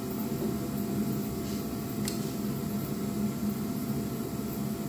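Steady low machine hum, with one light click about two seconds in.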